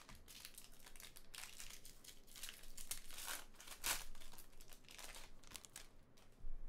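Foil wrapper of a Bowman baseball card pack being torn open and crinkled by hand: a run of irregular sharp crackles, the loudest about four seconds in.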